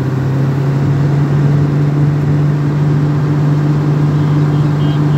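Excavator-mounted vibratory pile hammer running steadily on a steel pile, a loud, even, low hum that comes up to full strength just at the start and holds.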